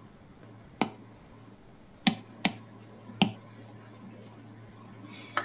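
Five sharp, separate taps, most likely a stylus tapping on a tablet screen, with a faint steady hum underneath.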